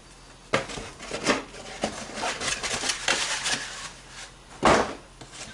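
Box contents being handled: a few sharp clicks and knocks, a stretch of rustling, then one louder knock near the end as an item is set down.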